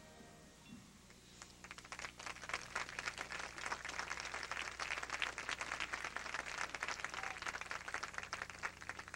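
The marching band's last held notes fade out, then a crowd in the stands applauds, the clapping building about a second and a half in and continuing steadily.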